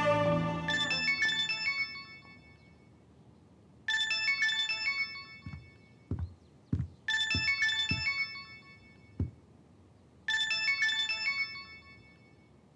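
Mobile phone ringtone: a short, bright chime melody that plays four times, about three seconds apart.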